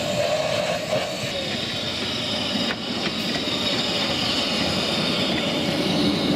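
15-inch gauge miniature steam locomotives running slowly past one after another, with a steady hiss of escaping steam over the rumble of wheels on rail. A thin high tone sits over the noise throughout.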